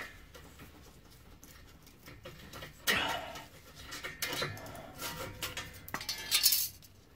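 Rusty steel exhaust flanges and loose bolts clinking and knocking, with a few irregular strikes, as a flexi-pipe-to-exhaust flange joint is worked apart by hand. The loudest clatter comes near the end.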